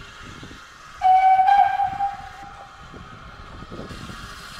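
Whistle of a Peckett 0-4-0 steam locomotive, one loud blast about a second in that lasts about a second and dies away.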